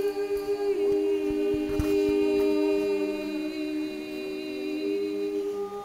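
Several voices holding long sung tones together, a few pitches at once, now and then sliding to a new note, with a lower note joining about halfway through: group vocal toning.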